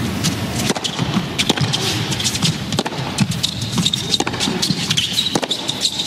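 Tennis serve followed by a baseline rally on an indoor hard court: sharp racquet-on-ball pops about a second apart over a steady crowd hubbub.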